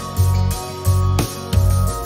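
Background music: a bass line moving under held tones, with light percussion.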